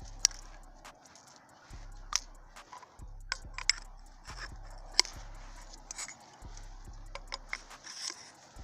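A series of sharp metallic clicks and clinks, the loudest about 5 seconds in, over a low hum that comes and goes.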